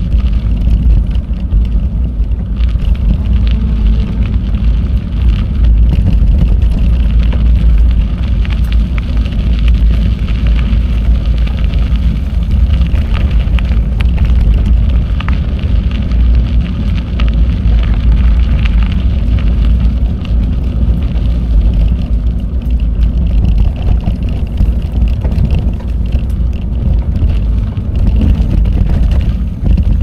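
Wind buffeting the microphone of a camera riding on a moving bicycle: a steady, loud low rumble, with faint scattered clicks from the ride.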